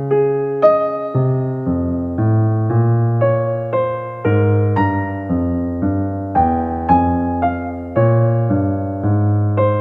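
Background music on electric piano: a melody of evenly struck notes, about two a second.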